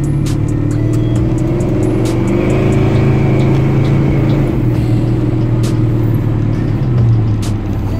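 Engine exhaust through Flowmaster 40 series mufflers, heard from inside the cab while driving: a deep, low rumble, a little stumbly, that rises slightly for a few seconds and then settles. Scattered sharp clicks sound over it.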